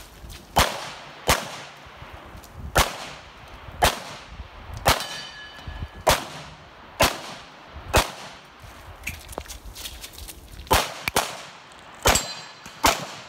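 Single-stack 1911 pistol in .45 ACP fired shot by shot at a pistol competition, roughly a second apart, with a pause of nearly three seconds before a quicker run of shots near the end. A metallic ringing follows one shot about five seconds in.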